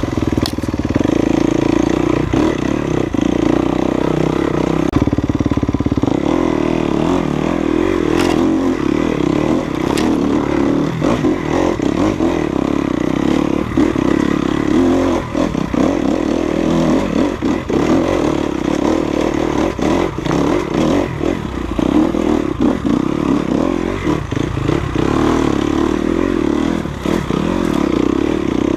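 Enduro dirt bike engine running under way on a rough trail, fairly steady in pitch, with scattered sharp knocks and rattles from the bike over the ground.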